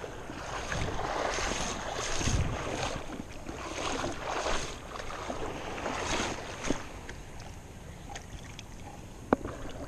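Wind buffeting the microphone over shallow, lapping water, coming in uneven gusts, with a couple of short sharp clicks in the second half.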